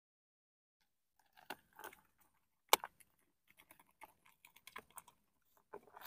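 Handling noise: scattered small clicks, taps and rustles, with one sharp click just under three seconds in and a run of small ticks after it.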